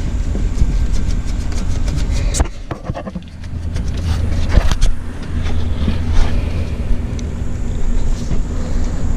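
Steady low engine-like hum with scattered sharp clicks and clinks of hand tools on metal.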